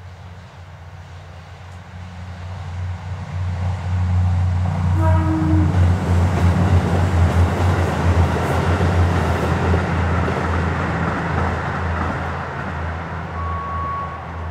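A diesel railcar passing: its engine drone builds, is loudest from about four to ten seconds in, then fades away. A short pitched toot, like the train's horn, sounds about five seconds in.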